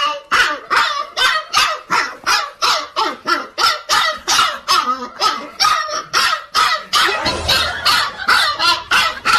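A dog barking over and over, about three barks a second without a pause.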